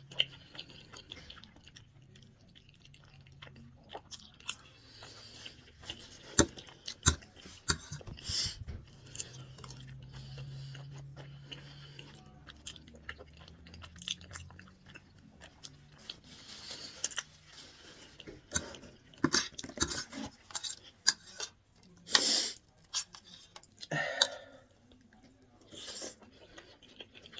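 Close-up chewing and eating sounds of creamy chicken pasta with mushrooms: wet mouth sounds broken by many sharp clicks, with a few louder bursts near the end.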